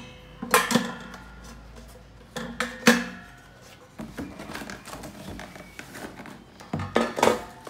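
The air fryer's plastic-and-nonstick basket and pan knocking and clattering as they are lifted and fitted together. There are sharp knocks about half a second in, around three seconds and near the end, with lighter taps and handling noises in between.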